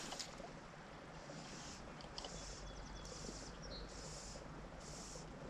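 Faint high-pitched animal calls, each about half a second long, repeating roughly once a second over a steady low hiss, with a short run of fast ticks partway through.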